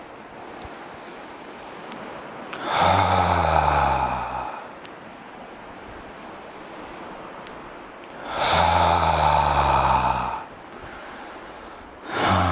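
A man's deep voiced sighs on the out-breath, each 'ahh' falling in pitch and lasting about a second and a half to two seconds, made while releasing the shoulders as if letting go of a heavy load. There are two full ones and a third starting near the end.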